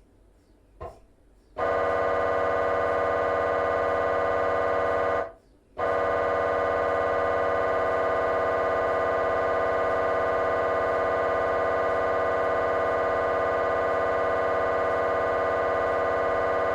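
GE 3 T MRI scanner's gradient coils running a coronal T1 fast spin echo sequence: a loud, steady buzzing tone starts about a second and a half in, breaks off for half a second around five seconds in, then resumes unchanged. Two faint short blips come just before it starts.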